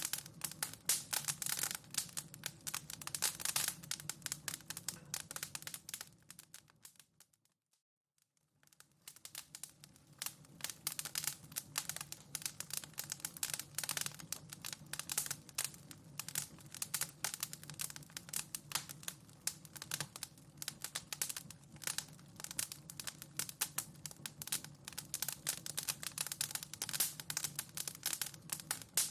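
Wood fire in a fireplace crackling, a dense run of irregular snaps and pops over a low steady rumble. About seven seconds in it fades away to near silence and builds back up a second or so later.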